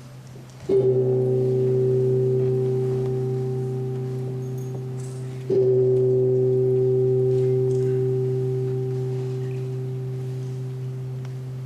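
A struck metal bell-like instrument rung twice, about five seconds apart, each stroke ringing long at a steady pitch and slowly fading, over a steady low hum.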